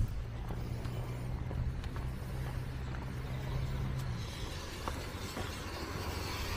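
Motor vehicle engine hum, low and steady, dropping away about four seconds in, followed by a hiss that builds toward the end.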